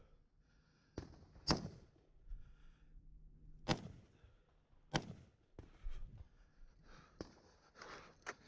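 AR-15 rifle firing single aimed shots: three well-spaced shots, about a second and a half in, near four seconds and at five seconds. Fainter knocks and rustling of movement follow near the end.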